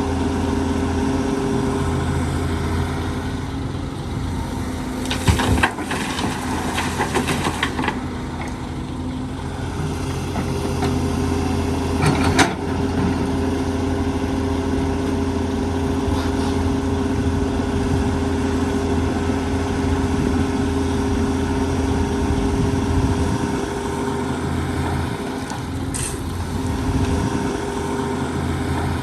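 Heavy diesel engine of an excavator running steadily. Bursts of clatter and rattling come about five to eight seconds in, a sharp one around twelve seconds in and a short one near the end: soil and stones tipped from the bucket into a dump truck's bed.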